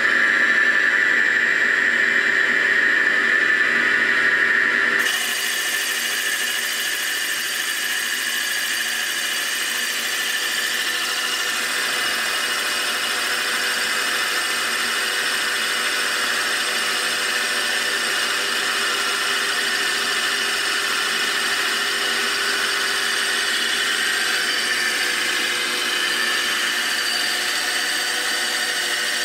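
CNC milling machine spindle turning a boring bar that is cutting an aluminium engine-block cylinder bore, lubricated with light cutting oil. It makes a steady machining whine with a strong high tone. About five seconds in, the sound changes abruptly to a slightly quieter, hissier cutting noise, which then holds steady.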